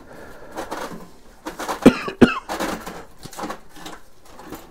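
A person coughing twice in quick succession about two seconds in, amid faint clicks of pipe fittings being handled.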